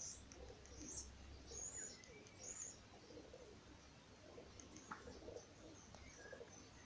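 Faint pigeons cooing, with a few short, high bird chirps in the first three seconds.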